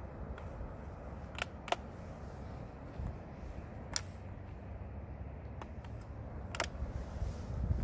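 Wind buffeting the microphone as a low rumble, with a few sharp clicks: two close together about a second and a half in, one at about four seconds and one near the end.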